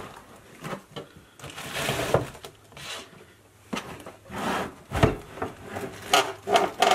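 A plastic storage bin being dragged and scraped out of a wooden kitchen cupboard: irregular rubbing and scraping, with a knock about five seconds in.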